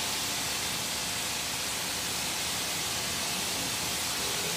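Steady hiss of a water jet spraying, rinsing cleaning solution off grease-caked car parts.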